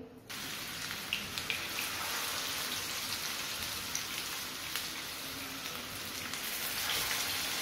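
Mutton seekh kababs on wooden skewers frying in shallow hot oil in a pan: a steady sizzling hiss with scattered small pops. The sizzle starts suddenly just after the first kabab is laid into the oil.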